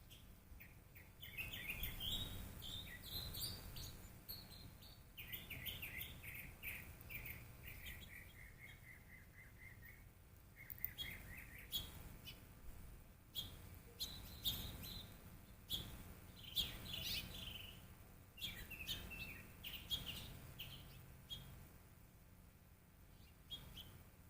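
Small birds chirping and calling, with many short high chirps and sharp ticks, and a run of notes that slides gradually down in pitch for several seconds about a quarter of the way in.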